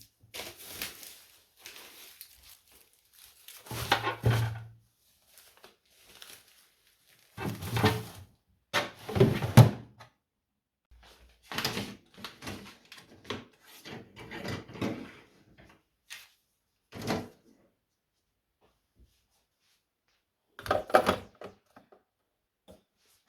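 Household objects being handled: an irregular series of knocks, clatters and rustles with quiet gaps between, the loudest about eight to ten seconds in and again near the end.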